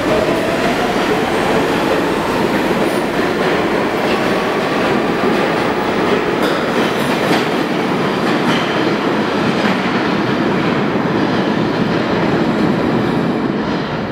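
R46 subway train pulling out of the station, its traction motors whining higher as it accelerates, with steady wheel-on-rail rumble and clatter. The noise falls away near the end as the train disappears into the tunnel.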